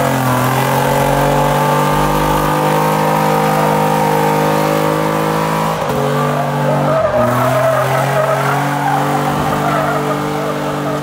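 A lifted pickup truck's engine is held at high, steady revs during a burnout while its rear tyres spin and squeal on the asphalt. The revs dip briefly about six seconds in and climb straight back.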